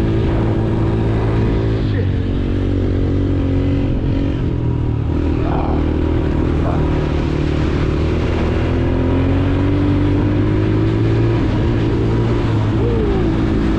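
Honda TRX90 ATV's small four-stroke single-cylinder engine running steadily while riding through snow. Its pitch drifts with the throttle and rises slowly about two-thirds of the way through.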